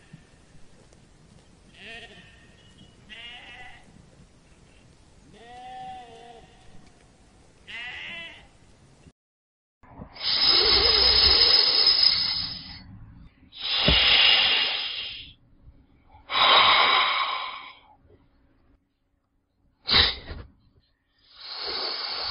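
Sheep bleating, about four calls in the first nine seconds. Then a cobra hissing: five loud hisses, four of them long, lasting one to three seconds each, and one short, sharp one near the end.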